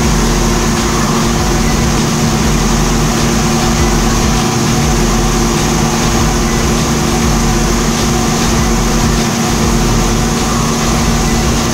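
Unique 2722 CNC door-parts machining center running with its brush sanding drums spinning: a steady, even mechanical hum with no change in pitch. The machine is locating the center of the clamped panel before shaping an arch.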